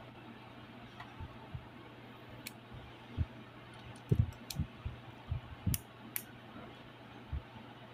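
Plastic parts of a Cosmo Dragon Beyblade Burst top clicking and knocking as they are handled and fitted together by hand: several sharp clicks among soft bumps, over a faint steady low hum.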